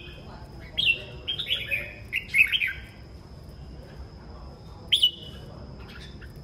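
Red-whiskered bulbul singing: a quick run of short, clear, falling whistled notes about a second in, then a single brief call near five seconds.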